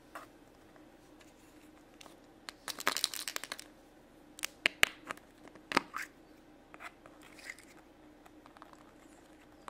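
Hands opening the plastic toy capsule from a chocolate surprise egg: a short burst of crinkling about two and a half seconds in, then a few sharp plastic clicks and rustles as the capsule is worked open and the small toy pieces come out.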